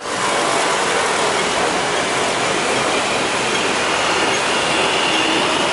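Hong Kong double-decker tram running along its street rails, heard from the upper deck: a steady noise of the wheels on the track. A faint high squeal of the wheels comes in about four seconds in.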